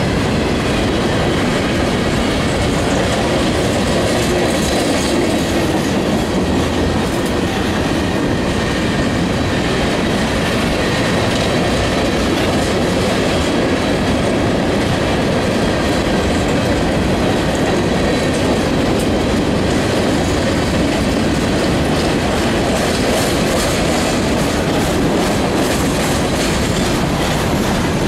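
Freight cars of a mixed freight train rolling past close by: a steady rumble and rattle of steel wheels on the rails, with repeated clacks that come more often near the end.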